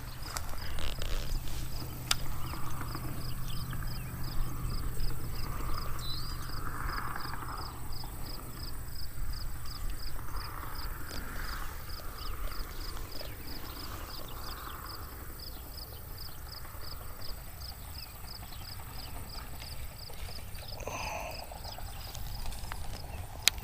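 Outdoor ambience with a steady, high-pitched ticking at about two ticks a second, over a low steady hum.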